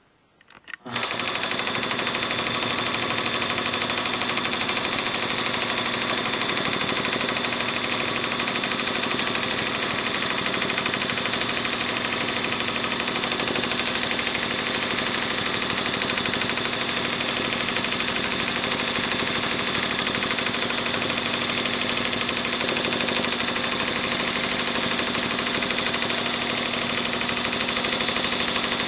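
Voyager 17 longarm quilting machine stitching steadily at speed, a fast even rattle of needle strokes over a motor hum, starting about a second in.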